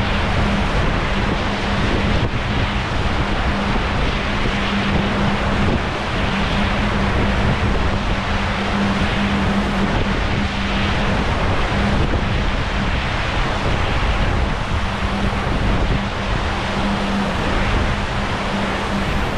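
Wind buffeting the microphone and water rushing past the hulls of a Dragonfly 25 Sport trimaran sailing at speed, over a steady low hum that swells and fades.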